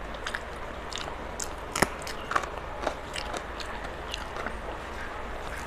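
Close-miked eating sounds: chewing with small wet mouth clicks while fingers mix rice on a steel plate. Three sharper clicks stand out near the middle.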